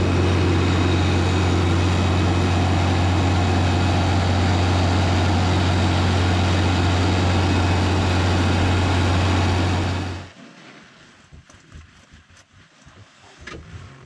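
New Holland T8050 tractor's diesel engine running steadily with a loud low drone. It stops abruptly about ten seconds in, leaving only faint scattered sounds.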